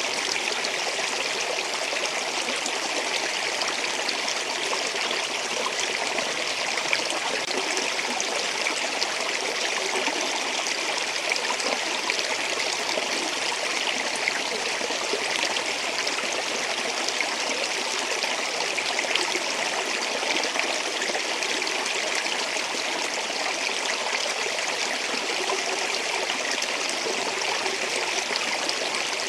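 Stream water flowing steadily over rocks, an even splashing rush with small gurgles.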